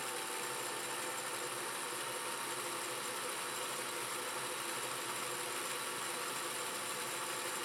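Singer 404G sewing machine's direct-drive electric motor running steadily, winding thread onto a bobbin on the top-mounted winder with the stop-motion knob released, so the needle is not stitching.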